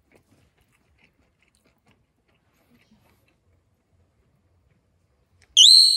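Faint scattered clicks, then near the end a sudden loud, bright ding that rings on and fades, its pitch dipping for an instant at the start before holding steady: a chime sound effect.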